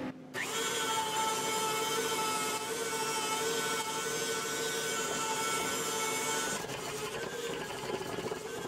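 KitchenAid stand mixer running, its electric motor whining steadily as it whips a thick protein fluff in a stainless steel bowl. The whine dips slightly in pitch about seven seconds in.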